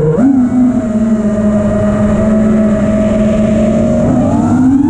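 The brushless motors and propellers of a 5-inch FPV freestyle quadcopter, heard from its onboard camera, whining. The pitch jumps up as the throttle is punched just after the start, holds steady, then climbs again about four seconds in, over a rush of air noise.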